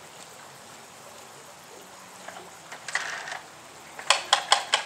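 Rusty pressed-steel Tonka toy truck being handled and tilted, a brief rustle about three seconds in, then about five quick metallic clacks near the end as its loose parts rattle. A creek runs steadily underneath.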